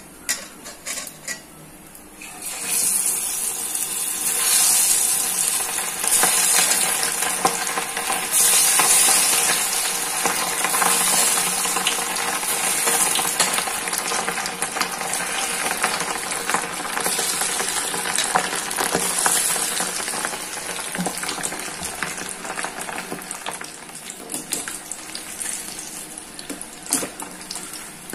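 Batter-coated needlefish deep-frying in hot oil: a loud, crackling sizzle starts suddenly about two and a half seconds in as the fish go into the oil, then slowly eases off.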